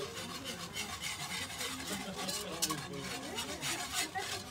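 Wire whisk scraping and rubbing around a cast iron skillet, stirring bubbling caramel in quick irregular strokes.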